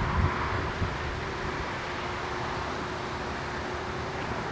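Steady outdoor background noise with a faint steady hum, and light wind buffeting the microphone in the first second.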